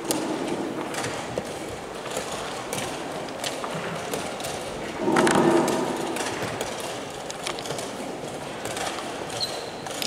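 Wooden chess pieces clacking down on a wooden board and a chess clock being tapped in quick blitz moves, a string of short sharp clicks over steady background noise. A louder, longer sound comes about five seconds in, while both players have their hands at the board.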